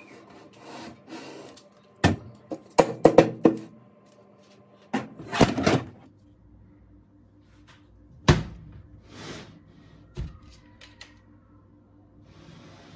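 Handling noise from a disassembled sound bar's plastic and metal parts: a quick cluster of knocks and clatters about two seconds in, a scraping rustle around five seconds, then single knocks near eight and ten seconds.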